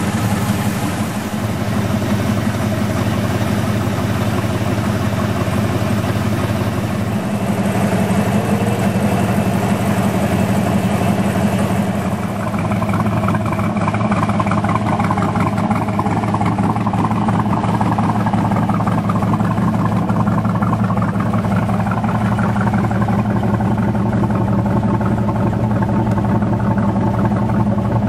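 GM LS7 7.0-litre (427 cubic inch) V8 in a 1967 Corvette idling steadily, with a fine even firing pulse and no revving.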